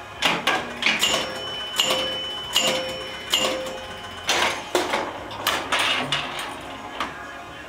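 Gottlieb Jungle King electro-mechanical pinball machine in play: sharp clacks of flippers, bumpers and relays. In the first half, four evenly spaced bell-like chime rings about 0.8 s apart sound as the score reels add a thousand points at a time.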